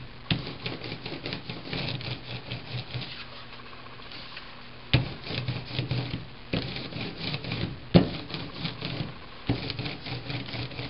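An ink brayer rolled back and forth over an inked printing plate, the tacky printing ink crackling under the roller in runs of fine ticks. It eases off briefly a little past the middle, and a few sharper knocks stand out.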